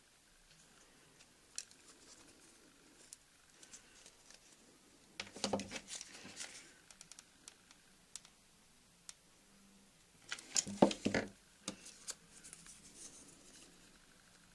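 Small clicks and rustles of hands handling foamiran petals and a hot glue gun on a wooden table. Two louder clusters of clattering come about five and a half seconds and about eleven seconds in.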